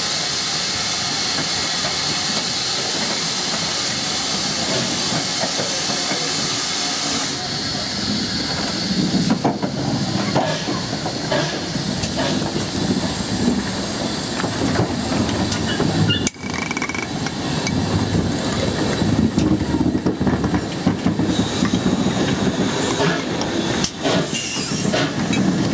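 A steam locomotive blows off a steady hiss of steam, which stops suddenly about seven seconds in. GWR pannier tank No.7714 then rolls slowly past close by, its running gear rumbling and clicking over the rails.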